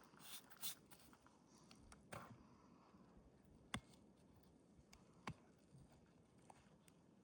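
Faint, scattered clicks and light taps, about five over several seconds, with a brief soft rustle near the start, over a very quiet background.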